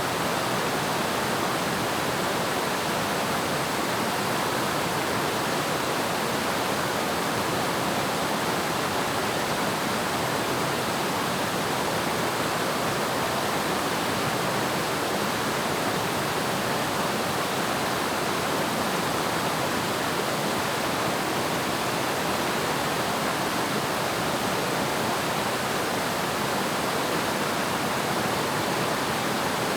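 Waterfall: water pouring and splashing in a steady, even rush that does not change.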